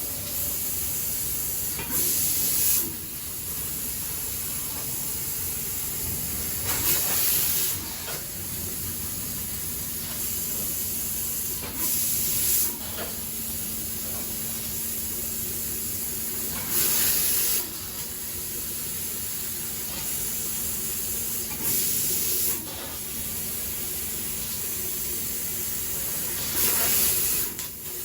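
12,000-watt laser cutting machine running with a steady hiss, broken by a louder hiss of just under a second about every five seconds, six times in all. A faint steady hum joins about a third of the way in.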